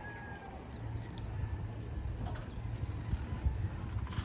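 A quick flurry of high, short chirps from small birds about a second in, over a steady low engine rumble.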